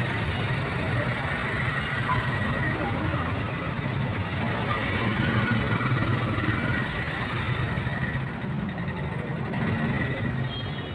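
Busy city street ambience: a steady rumble of passing traffic and idling engines, with faint voices of people nearby.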